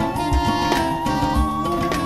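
Instrumental background music in a traditional Middle Eastern style: held melody notes over a regular low drum beat.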